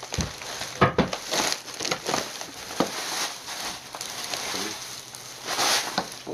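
Clear plastic bag of crab legs being handled, the plastic crinkling and rustling in irregular bursts, loudest about a second in and again near the end.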